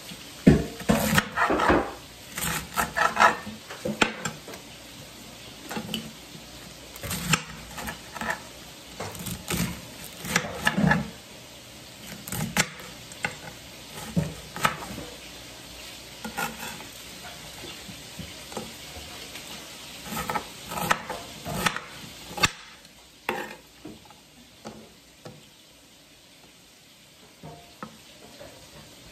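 A cooking utensil stirring food in a pan, with irregular scraping and knocking against the pan over a steady sizzle of food frying in oil. The clatter dies down about 22 seconds in, leaving only a few quiet clicks.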